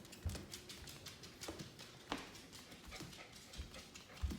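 Faint scattered clicks and a few soft, low thumps in a quiet room.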